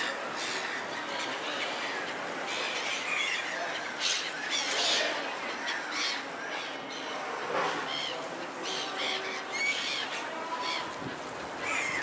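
Seagulls squawking, many short calls coming irregularly and overlapping.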